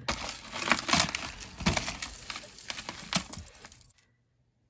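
Costume jewelry of metal chains and beads clinking and rattling as pieces are handled and dropped, a quick run of clinks that cuts off abruptly about four seconds in.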